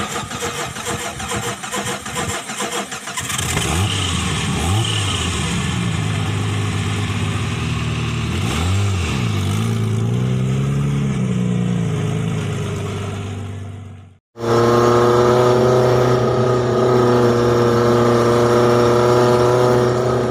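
Vehicle engine sound effect: the engine revs up and down in several rising and falling sweeps. About fourteen seconds in it cuts off suddenly, then resumes as a steady, even drone.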